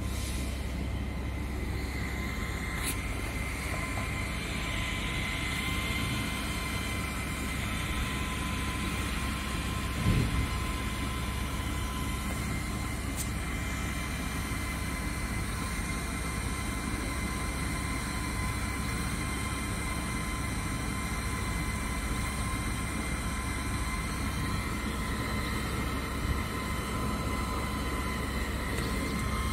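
40 W blue diode laser engraver running while it engraves stainless steel: a steady whir from the laser head's cooling fan, with a high, even whine from its drive motors. A brief knock about ten seconds in.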